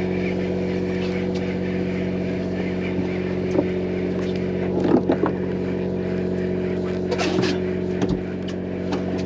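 Fishing charter boat's engine running steadily, a continuous drone. There are a few short knocks and clicks in the middle, the loudest about halfway through.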